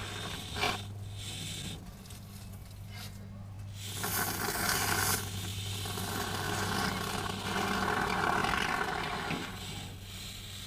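Aerosol can of expanding spray foam hissing as foam is pushed out through its straw into a gap, in a short burst about four seconds in and then a longer one of about three seconds. A steady low hum runs underneath.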